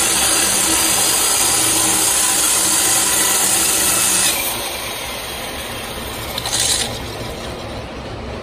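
Handheld electric core drill with a diamond core bit grinding a hole in granite, cut dry, while a compressed-air blow gun hisses at the bit. About four seconds in the loud air hiss stops and the drill runs on more quietly, with a brief burst of hiss about two-thirds of the way through.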